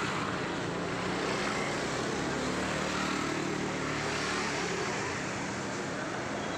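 Motor scooter engine running steadily at idle, over street traffic noise.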